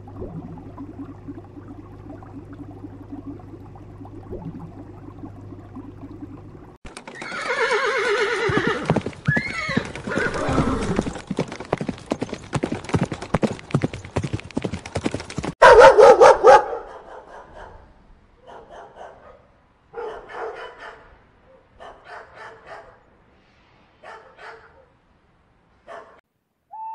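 A steady low hum for about seven seconds, then horses whinnying over a dense clatter of hooves, then a dog barking: one loud bark followed by a string of shorter, quieter barks about every second or two.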